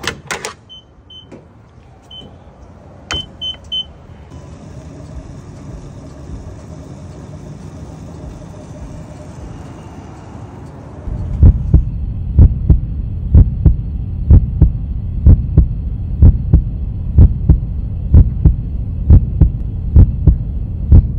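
Petrol pump at a filling station: a few short high beeps from the pump's keypad, then the pump running as fuel flows through the nozzle with a steady hiss. About eleven seconds in, a loud deep thump repeating about twice a second takes over.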